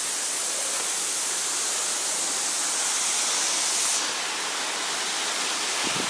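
Steady rushing hiss of Bambarakanda Falls, a tall waterfall plunging down a cliff into a rock pool. Its highest hiss eases off about two-thirds of the way through.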